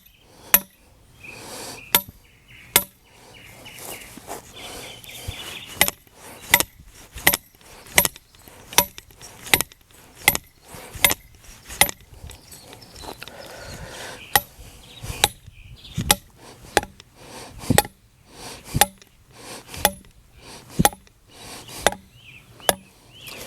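Repeated hammer blows driving a black iron pipe into the ground for a gate stop. A few scattered strikes come first, then a steady run of about one and a half strikes a second.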